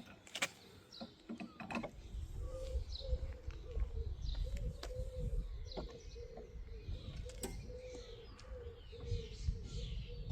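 Birds chirping in short falling calls, with a repeating low cooing, over a steady low rumble.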